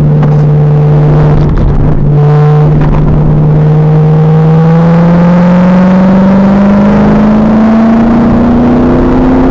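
2000 Pontiac Trans Am Firehawk's LS1 V8 pulling hard under acceleration, its engine note rising steadily in pitch through the gear after a brief hitch about two seconds in. Heard from inside the car on an overloaded, distorted recording.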